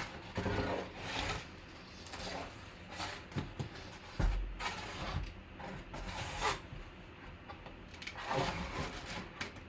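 Cardboard box being handled: flaps and a cardboard insert sliding and scraping in irregular strokes, with a dull thump about four seconds in.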